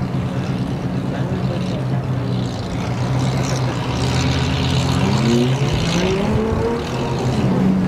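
Stock car engines idling in a steady low drone, with engines revved and rising in pitch in the second half.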